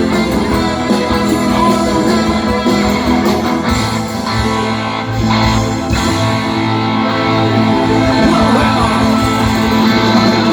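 Music with a plucked guitar prominent, playing steadily.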